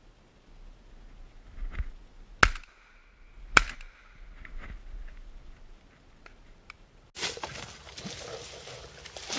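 Two shotgun shots about a second apart, fired at doves in flight, with a faint click just before them. About seven seconds in, a steady rushing outdoor background noise takes over.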